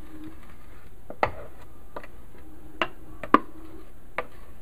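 A spatula knocking and scraping against a food processor bowl as thick frozen-banana ice cream is dished out: about half a dozen sharp, irregularly spaced taps, the loudest a little past three seconds in.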